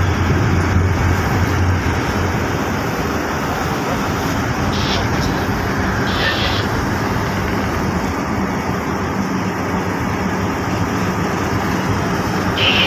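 Tugboat engine running steadily, with water rushing along the hull.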